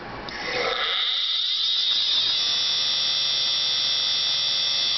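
Opened-up old hard drive spinning up: a high whine rises in pitch over the first two seconds or so, then holds steady and high-pitched once the platters reach full speed.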